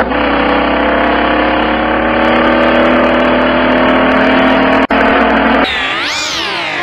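Car engine running steadily, heard from inside the cabin. About five and a half seconds in it cuts off abruptly and a swooping sound effect takes over, sweeping sharply up and down in pitch.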